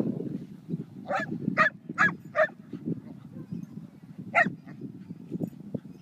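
A dog barking during rough play with another dog: four short, sharp barks in quick succession about a second in, then one more a little past the four-second mark. A low rumbling noise runs underneath.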